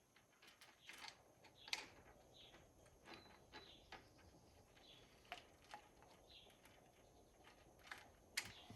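Near silence, with a few faint scattered clicks and light rustles.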